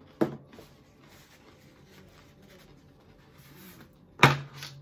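Tarot cards being shuffled by hand, a soft rustle, with two sharp knocks: one just after the start and a louder one near the end.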